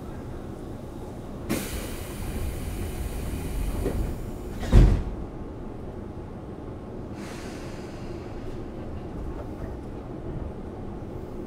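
Pneumatic sliding doors of a Tobu 10000-series commuter car closing: a hiss of air for about three seconds, ending in a heavy thump as the doors shut. A shorter, fainter air hiss follows a couple of seconds later, over the steady low hum of the standing train.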